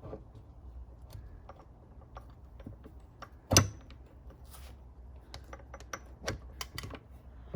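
Metal clicks and clinks of the Suzuki LT500 transmission's countershaft and drive shaft gear sets being installed together, with one loud sharp clack about three and a half seconds in and a run of lighter clicks near the end.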